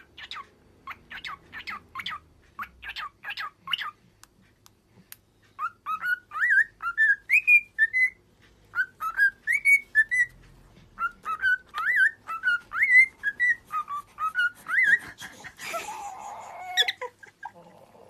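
Cockatiel chirping in short, quick notes, then whistling a tune of gliding notes for about ten seconds, with a short harsher, noisier sound near the end.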